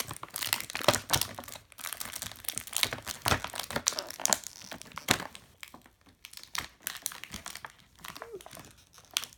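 Plastic toy blind bags crinkling as they are handled and squeezed: a rapid, irregular run of crackles and rustles that thins out in the second half.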